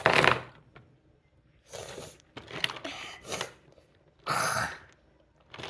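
A person sneezing repeatedly, several sharp bursts with short gaps between, the loudest right at the start and another about four seconds in.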